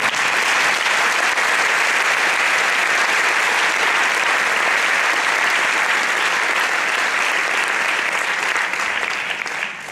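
Large audience applauding steadily, the clapping dying down just before the end.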